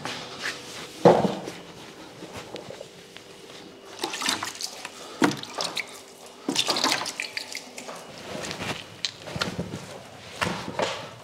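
Water poured from a plastic bucket into a large plastic tub, splashing in irregular bursts, with a dull thud about a second in.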